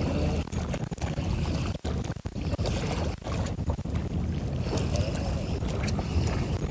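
Wind rumbling on the camera microphone over open water, a steady low noise broken by a few brief dropouts.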